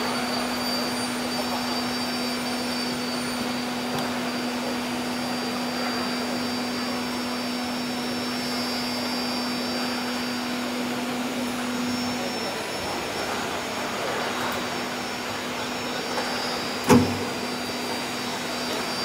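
Aluminium profile CNC drilling-milling machine running, a steady machine hum over an even background of noise; the hum weakens briefly past the middle. A single sharp knock near the end.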